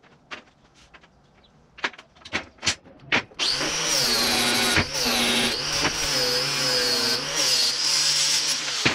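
A few light metal clinks and knocks from steel parts being handled. About three and a half seconds in, an electric angle grinder starts on steel and runs loudly, its high whine wavering as it is pressed into the work. It stops near the end.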